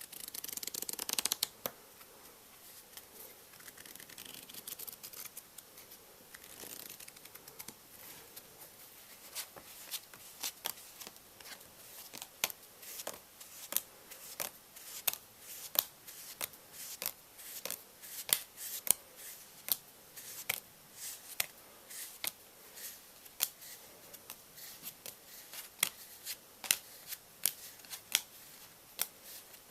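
Playing cards being handled close to the microphone: a short rustle at the start, then from about nine seconds in a steady run of crisp clicks, roughly two a second.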